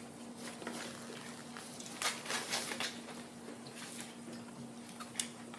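Quiet eating sounds at a table: soft clicks, smacks and rustles of chewing and handling food, the busiest patch about two seconds in, over a steady low hum.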